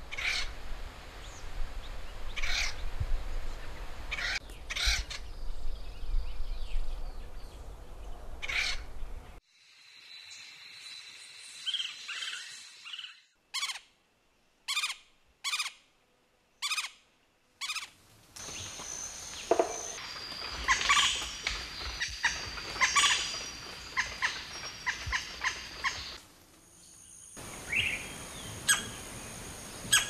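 Woodpecker calls from several recordings in turn, with the recording changing a few times. Partway through comes a run of about six short, sharp calls, evenly spaced.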